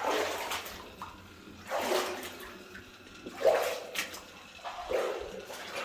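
Water in a flooded mine tunnel splashing and sloshing in four surges, about a second and a half apart, each fading away.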